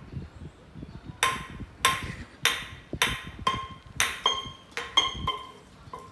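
Small metal can on a rat's stuck head clanking against a concrete floor as the rat runs with it. About ten sharp knocks, roughly two a second, each with a short metallic ring.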